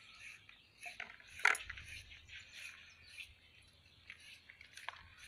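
Light food-preparation sounds: soft scrapes and small clinks of utensils and dishes, with a sharper clink about one and a half seconds in.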